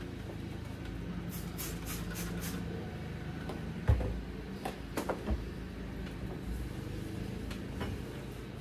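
A trigger spray bottle spritzed about five times in quick succession, then a sharp knock and a few lighter taps as things are set down and handled on the counter, over a steady low hum.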